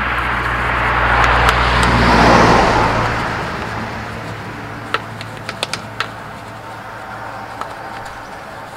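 A vehicle passing close by, its noise swelling to a peak about two seconds in and then fading away, followed by a few sharp clicks.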